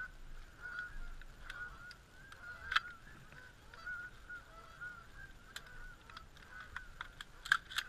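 A flock of geese honking and clucking in a steady stream of short calls, with a few sharp clicks.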